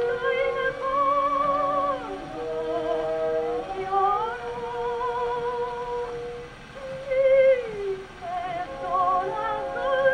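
Soprano singing an operatic aria with orchestra, played from an old 78 rpm record on an HMV 130 acoustic gramophone with a bamboo needle. The voice carries a wide vibrato on its held notes over sustained accompaniment, with a phrase sliding downward a little after halfway.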